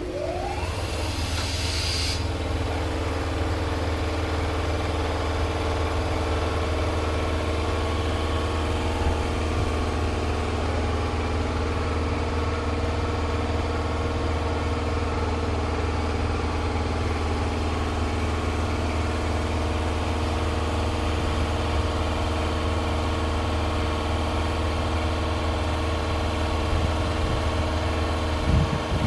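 A standing Enshu Railway 2000-series electric train hums steadily from its onboard equipment while stopped at the platform. A brief hiss and a rising whine come at the start, and a few low knocks come near the end.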